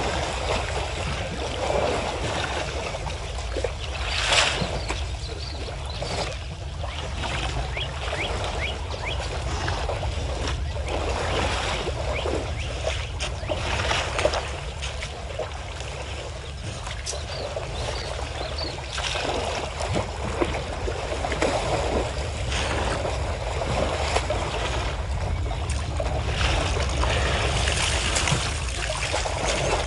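Water splashing and sloshing as African elephants wade and a calf swims in a waterhole, with irregular louder splashes, the strongest about 4 seconds and 14 seconds in, over a steady low background rumble.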